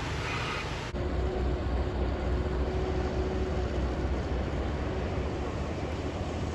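Repeated beeping at the very start, then, after a sudden change about a second in, the deep steady rumble of a heavy diesel engine idling, with a faint steady tone over it for a few seconds.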